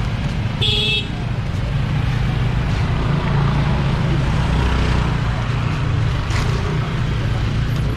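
Busy road ambience: motorbike engines running steadily, with people's voices in the background and a short beep about a second in.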